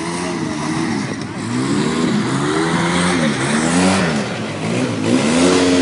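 ATV engine revving up and falling back again and again, its pitch rising and dropping about once a second as the throttle is worked.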